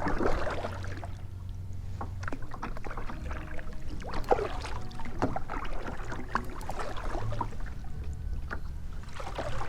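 Small waves lapping and slapping against a kayak hull in short irregular splashes, with faint piano notes held at several different pitches underneath.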